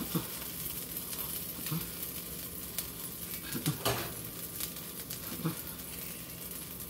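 Tortilla and cheese sizzling steadily in a hot nonstick pan, with a few short taps and knocks as chopped chicken is dropped onto it by hand.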